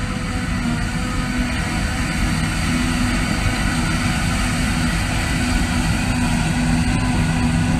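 Self-propelled forage harvester and tractor running steadily while the harvester chops grass and blows it into a trailer alongside: a constant heavy engine drone with a steady low hum.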